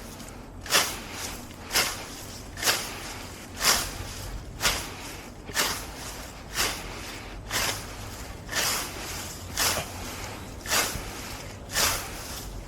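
Heavy, laboured breathing from physical exertion: a sharp, noisy breath about once a second, evenly paced.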